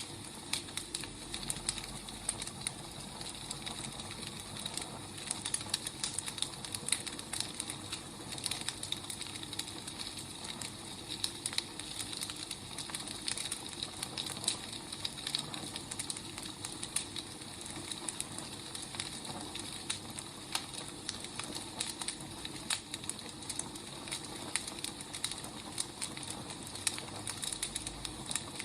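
Firewood fire crackling steadily, with many small sharp pops and snaps over a soft hiss.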